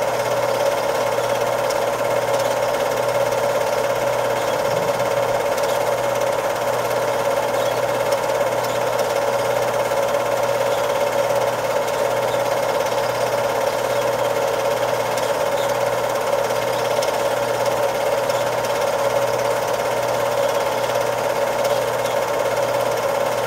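Cine film projector running steadily, its motor and film-advance mechanism making a constant mechanical clatter.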